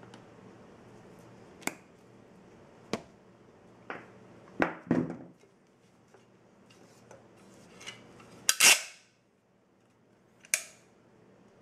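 Scattered sharp clicks and clacks from a hand caulking gun loaded with a silicone tube being handled and worked, its metal trigger and plunger rod knocking; the loudest is a short rasping clatter late on.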